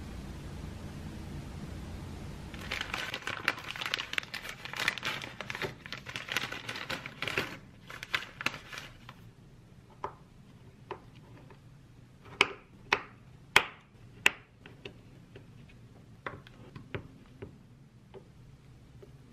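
Scones being cut with a serrated knife on a wooden cutting board. After a low hiss there are several seconds of crinkly rasping, then a run of sharp knocks and taps on the board.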